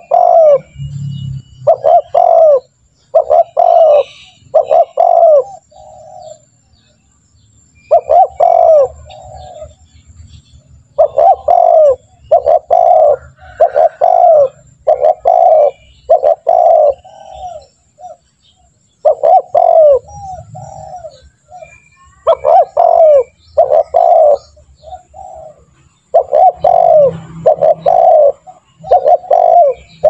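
Spotted dove (tekukur) cooing over and over in phrases of several notes, with short pauses between the phrases.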